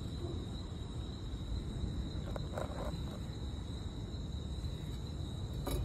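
Night ambience: a steady low rumble under a constant high insect drone, with a short soft sound about two and a half seconds in and a sharp click near the end.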